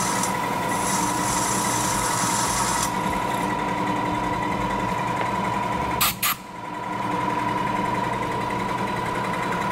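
Vertical knee mill's spindle running with a steady whine while a drill bit is fed into metal angle held in the vise, with a high hiss over the first three seconds. Two sharp clicks a little past halfway, then a brief dip in the running sound.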